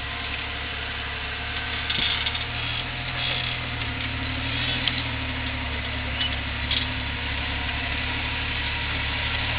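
Off-road buggy's engine running at low revs as it crawls through a gully, picking up slightly about three seconds in.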